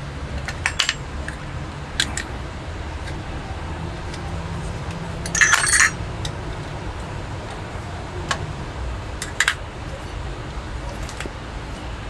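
Metal faucet parts clicking and clinking as a leaking tap is taken apart, with a short rattling clatter about halfway through, over a steady low rumble.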